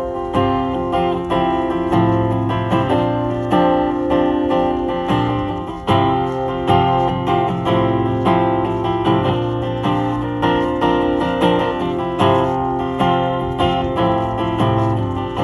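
Acoustic guitar played solo as a song's instrumental intro, chords strummed and picked in a steady rhythm.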